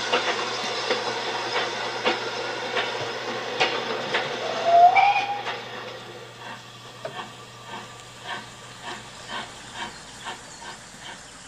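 Steam locomotive: steam hissing with clanks, a short rising whistle blast about five seconds in, then quieter with a regular beat about twice a second.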